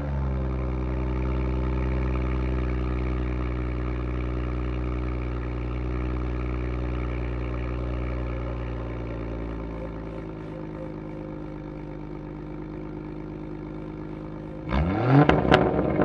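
BMW M140i's B58 3.0-litre inline-six idling steadily through a Milltek Sport cat-back exhaust, the idle settling slightly lower about ten seconds in. Near the end a quick rev rises sharply, and several sharp pops follow as it drops back.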